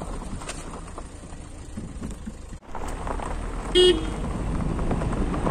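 A single short car-horn toot about four seconds in, over the steady low rumble of a vehicle on the move.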